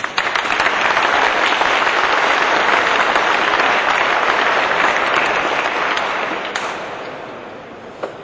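Audience applauding, starting at once, holding steady and then dying away over the last couple of seconds, with a single knock near the end.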